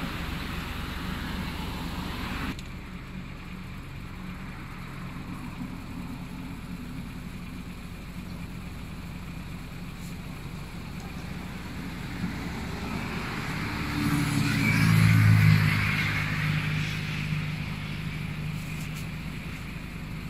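Road traffic: cars driving past on the road. The noise drops suddenly about two seconds in, and later one vehicle passes loudly, swelling and fading over a few seconds.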